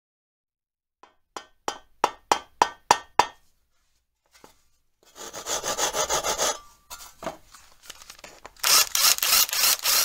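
Workshop tool sounds for a channel intro: about eight quick strokes at roughly three a second, growing louder, then a harsh rasping stretch, then a loud steady noise near the end.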